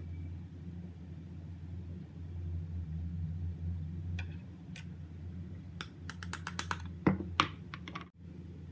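Stainless steel mesh strainer shaken and tapped over a plastic bowl while sifting ground spice powder: a few light clicks, then a quick run of taps and two louder knocks in the second half. A steady low hum runs underneath.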